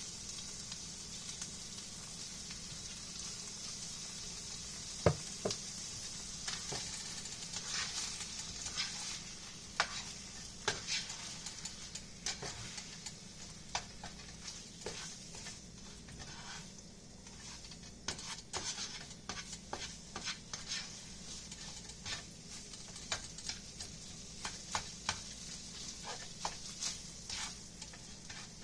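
Fried rice sizzling in a frying pan while a utensil stirs it, with frequent clicks and scrapes against the pan and one sharp knock about five seconds in.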